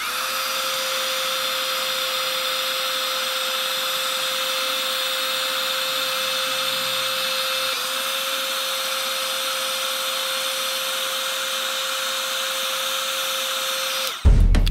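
Electric heat gun blowing steadily, a rushing air noise with a steady hum, shrinking heat-shrink tubing over a soldered bullet connector on a motor wire. The hum dips for a moment about halfway through. It cuts off near the end as music comes in.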